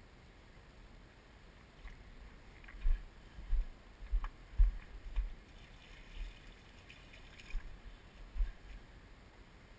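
Irregular low thumps and bumps on the microphone of a handheld GoPro camera as it is moved about, bunched in the middle with a few more near the end, over a faint steady hiss.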